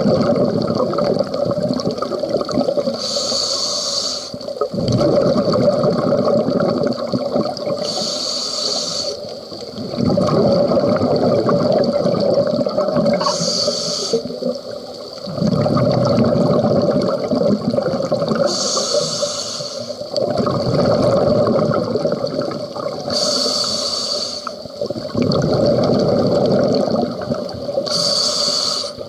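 Scuba diver breathing through a regulator, heard underwater: a short hiss on each inhale followed by a longer rush of bubbling exhaust, repeating about every five seconds, six breaths in all.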